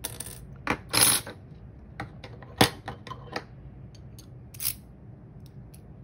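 Small metal lock parts being handled: a brass pin-in-pin lock cylinder and its key clicking and scraping in a string of sharp taps, with a short rattle about a second in and the loudest click about two and a half seconds in.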